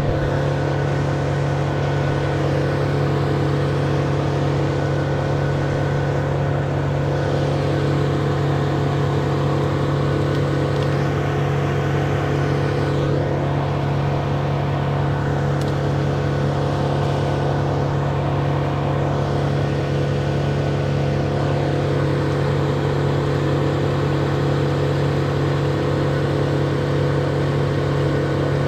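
An engine running steadily at constant speed, with an even low hum that does not rise or fall.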